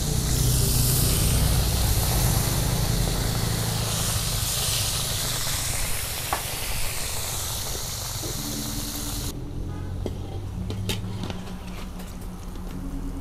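Hot oil sizzling as tempeh deep-fries in a wok, a steady hiss that fades out about nine seconds in. A couple of light clicks follow.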